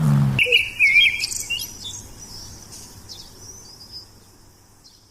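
A low animal growl cuts off abruptly; then birds chirp and twitter over a thin, high, steady trill, fading out toward the end.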